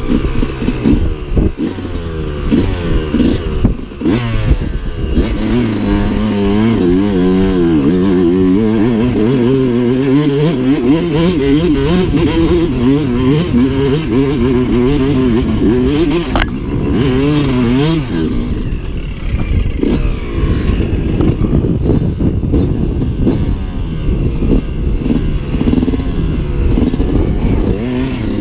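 Enduro dirt bike engine under way off-road, the revs rising and falling again and again as the throttle is worked over rough ground.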